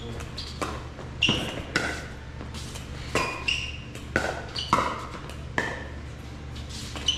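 Pickleball doubles rally: about ten sharp, ringing pops of paddles striking the hollow plastic ball, with bounces on the court among them, in a large echoing indoor hall. A steady low hum runs underneath.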